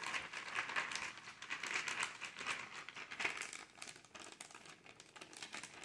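The plastic bag of an MRE flameless ration heater, with water in it, being shaken by hand: crinkling plastic, louder at first and fading after about three and a half seconds. The shaking mixes the water into the heater to start its heating reaction.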